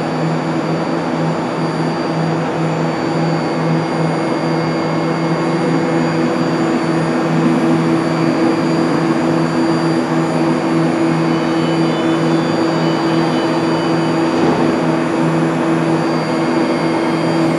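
Bombardier BART electric train at the platform, its onboard equipment running with a steady whirring hum as it moves off. A couple of thin high tones join in during the second half.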